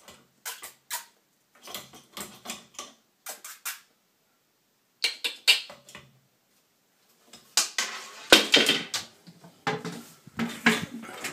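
Bird trapped in the duct behind a ceiling vent, scratching and scrabbling against it in short bursts of rapid clicks. Two thirds of the way in comes a louder, longer flurry with a single thump.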